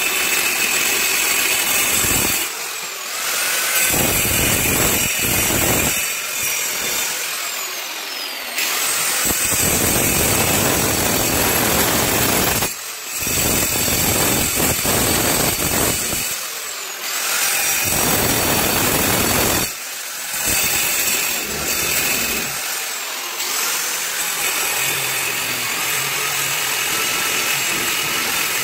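Electric angle grinder with a cutting disc running against brick, grinding a groove into the wall. The rough cutting noise under the motor's steady high whine breaks off for a moment several times as the disc eases off the brick, then bites in again.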